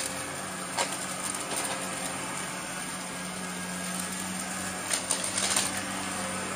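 Upright bagless vacuum cleaner running on carpet: a steady motor hum under the hiss of suction. Sharp crackles come about a second in and again in a cluster around five seconds, as bits of debris are sucked up and rattle into the bin.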